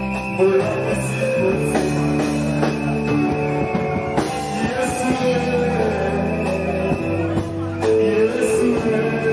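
Band music: held chords with guitar and drums, and a voice singing a melody over them.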